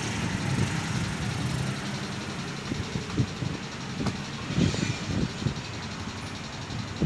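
Steady low engine-like rumble in the background, with a single sharp click about four seconds in.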